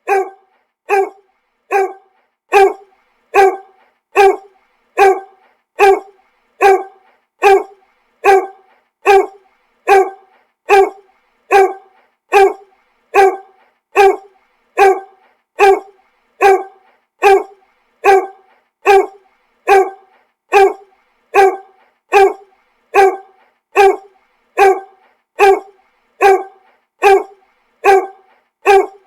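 A dog barking: single short barks repeated at an even, unchanging pace of a little more than one a second, each bark alike.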